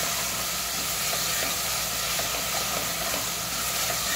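Onion-tomato masala sizzling steadily as it is fried in oil in an aluminium pot, stirred round with a wooden spoon. This is the bhuna stage of cooking the masala, with a spoonful of water just added.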